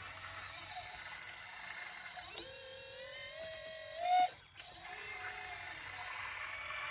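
Electric hydraulic pump of a 1/14-scale RC excavator whining. Its pitch rises slowly as the hydraulics take load, and it breaks off sharply about four and a half seconds in before the whine returns.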